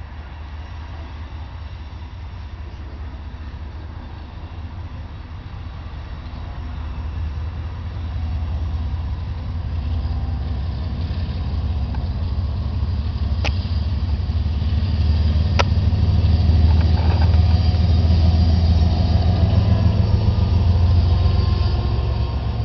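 BNSF diesel freight locomotives rumbling as they approach, growing steadily louder and at their loudest in the last third, with two sharp clicks in the middle.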